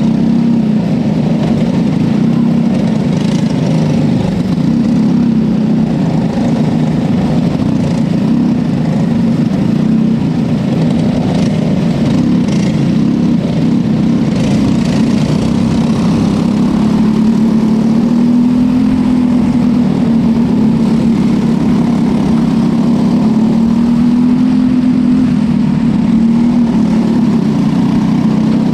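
Small winged dirt-track racing car engines running steadily at low revs while the cars roll slowly in line, the pitch wavering only slightly and lifting a little about two-thirds of the way in.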